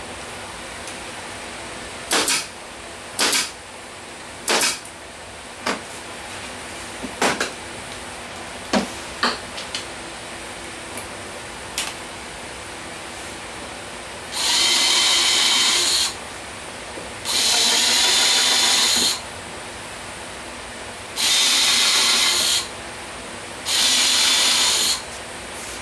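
A few sharp clicks and knocks of tools being handled on the workbench, then a cordless drill running in four bursts of one to two seconds each, drilling into a wooden board.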